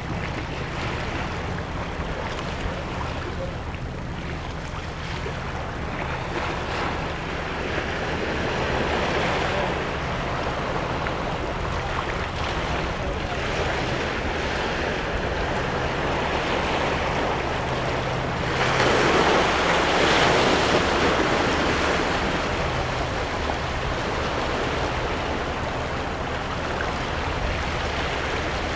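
Small waves washing and lapping over seaweed-covered shoreline rocks, swelling and ebbing, with a louder surge of water about two-thirds of the way through.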